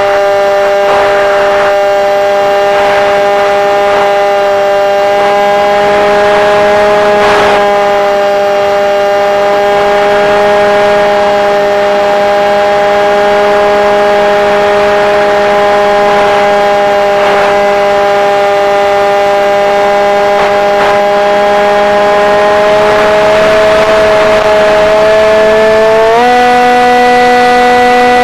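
Multiplex Shark RC airplane's motor and propeller heard from an onboard camera: a loud, steady whine that jumps up in pitch near the end as the throttle is opened, over wind rushing past the camera.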